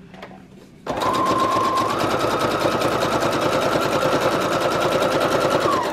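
Brother CE1100PRW computerised sewing machine stitching through paper. It starts about a second in with rapid, even needle strokes over a motor whine that steps up in pitch a second later as it speeds up, then drops as it stops at the end.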